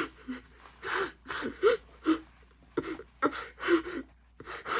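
A person's voice making short, breathy vocal sounds, a few each second, with the pitch bending up and down.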